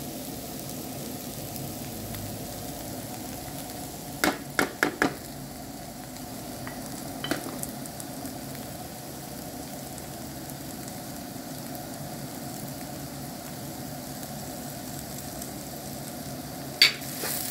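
Julienned onion, carrot and green pepper sizzling steadily as they fry in oil in a nonstick pan. A few sharp clicks come about four seconds in, and a louder single click near the end.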